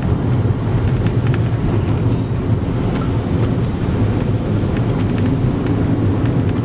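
Steady low rumble of a car, heard from inside the cabin, with faint scattered ticks over it.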